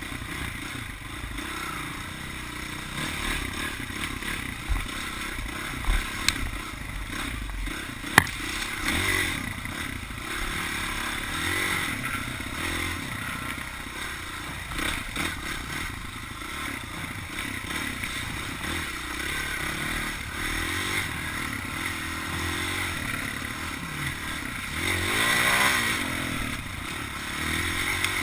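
Dirt bike engine revving up and down as it is ridden over rough trail, with clattering knocks from the bike over bumps, the sharpest about eight seconds in. Near the end the revs climb and fall off again, louder.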